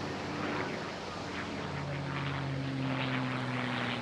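Military aircraft engines droning as they fly past, the pitch slowly falling.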